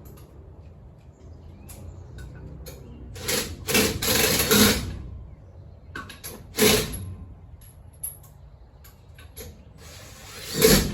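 Work on a pickup's suspension: tools in use, with three short, loud noisy bursts, the longest about a second and a half, among scattered sharp clicks and knocks.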